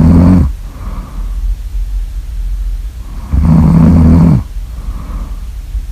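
Loud, low snoring. One snore ends about half a second in and another comes about three seconds later, lasting about a second, with quieter breathing in between.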